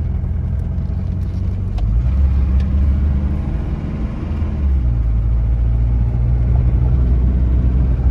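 Mercedes W123 240D's four-cylinder diesel engine running under way, heard from inside the cabin as a steady low rumble with road noise. The rumble eases briefly about four seconds in, then builds again.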